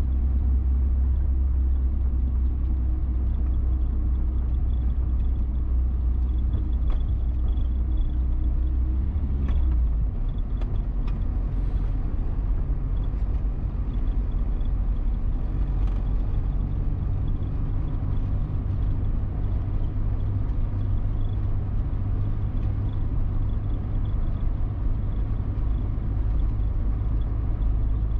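A car driving, with a steady low engine and road rumble; the low hum changes pitch about ten seconds in, as if the engine speed has changed.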